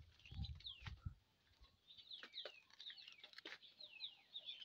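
Faint, repeated chirping of small birds: many short, high, falling notes, coming several a second from about two seconds in. There are a few low handling noises in the first second.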